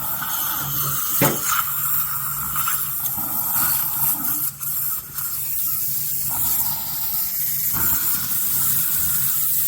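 Dental scaling under sedation: an ultrasonic scaler's water spray and the suction hissing steadily, with a mid-pitched whine that stops and starts a couple of times.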